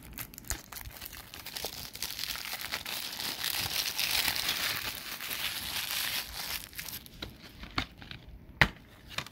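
Cellophane shrink-wrap being torn and peeled off a plastic DVD case, crinkling and crackling, densest midway. Near the end come a couple of sharp clicks, the louder one about a second before the end.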